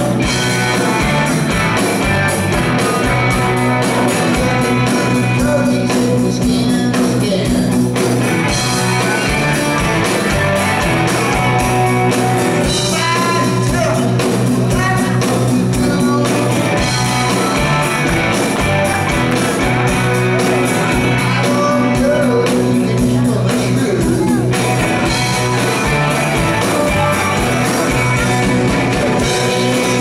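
Live rock band playing loudly: electric guitars, bass guitar and drum kit, with a lead vocal singing over them.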